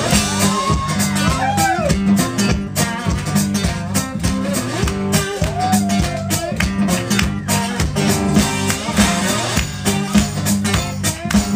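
Live blues song: amplified guitar played with sliding, bending notes over a steady percussive beat.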